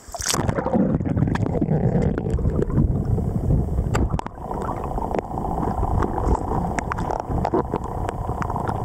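A splash as the camera goes into the river, then the muffled underwater rush and rumble of the flowing current heard through the submerged microphone, with scattered clicks and knocks of stones and handling.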